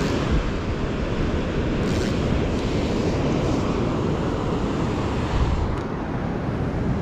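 Ocean surf breaking on the beach, with wind buffeting the microphone: a steady, rough rush of noise.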